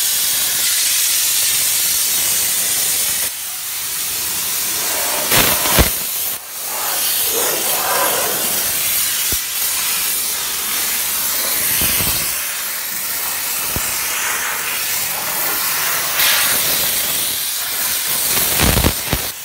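Steam jetting from the trigger gun of an LPG-fired 12-bar steam car washer onto a car door: a loud, continuous hiss. It is broken by a few brief thuds.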